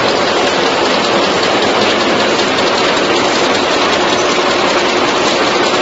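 Automatic chewing gum wrapping machine running at speed: a loud, steady, dense mechanical rattle with no pauses.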